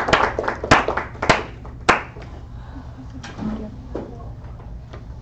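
A few people clapping, scattered sharp claps that die away about two seconds in, leaving quiet room hum with a few faint clicks.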